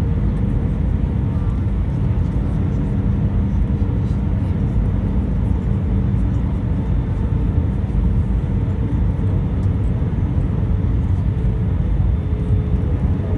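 Jet airliner cabin noise heard from a window seat on approach to land: a steady drone of the engines and rushing airflow, with a faint constant hum.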